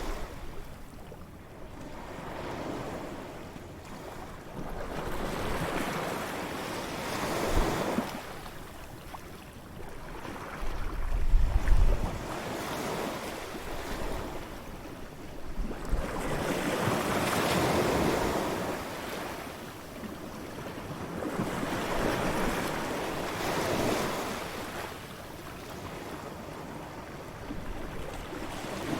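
Ocean waves breaking and washing up on a beach, swelling and fading every few seconds. Wind rumbles on the microphone at times, most strongly a little before the middle.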